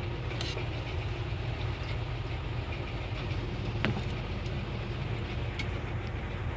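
Steady low background hum, with a light click of metal tongs against a glass dish about four seconds in.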